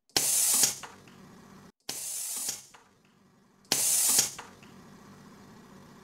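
Pneumatic cannon's valve firing three sharp blasts of compressed air, about two seconds apart, the middle one weaker. Each blast trails off into a faint hiss.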